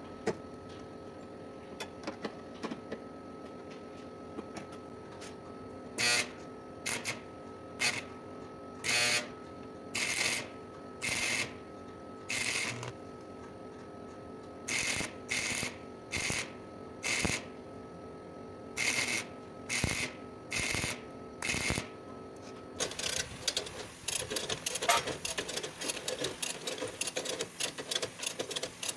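MIG welder tack-welding body sheet metal: about fourteen short crackling bursts, each under a second, with pauses between, then a denser, continuous crackle over the last few seconds.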